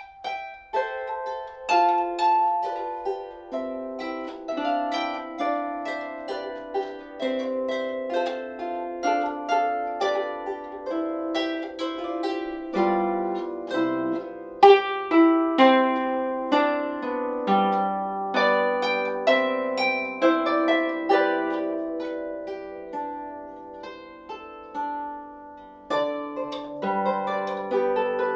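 Lever harp played solo: a continuous run of plucked notes and chords with a ringing decay, starting from silence.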